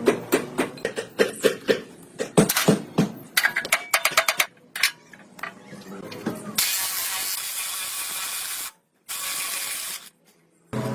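Metal tools and parts clicking and clanking, with ratchet-like clicks, then two hissing spray bursts that stop abruptly.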